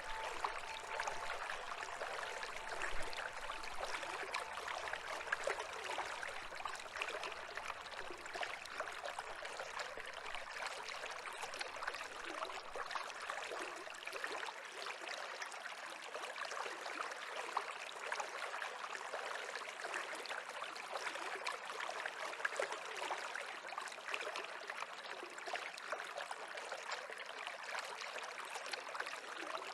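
A stream of water running with a steady, even babble, with a faint ringing tone that fades out about a second in.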